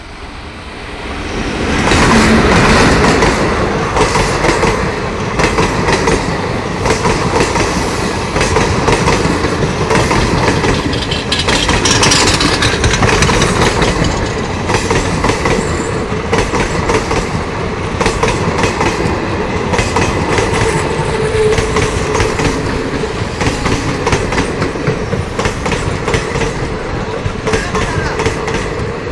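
Electric-hauled passenger train passing close at speed. The noise rises sharply about two seconds in as the locomotive goes by, then gives way to a continuous rush with a rapid clatter of coach wheels over the rail joints.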